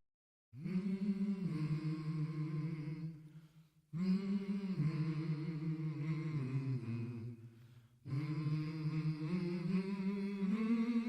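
A low voice humming a slow tune in three phrases of a few seconds each, stepping between held notes, with short pauses between phrases.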